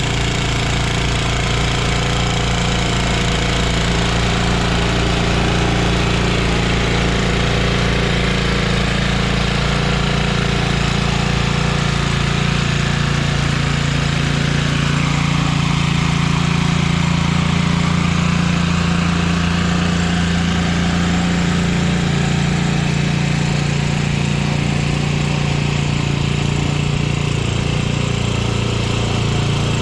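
A 1976 Ariens Sno-Thro snowblower's small air-cooled engine running steadily while clearing heavy wet snow. Its sound shifts slightly about halfway through.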